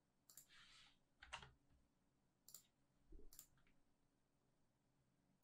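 A few faint, sharp clicks of a computer mouse, about a second apart, over near silence.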